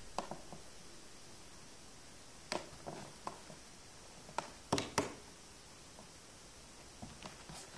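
Scattered light taps and scuffs on a cardboard box as a cat plays at a hole in it, batting at a thin wand toy waved over the opening. The loudest is a quick pair of taps in the middle.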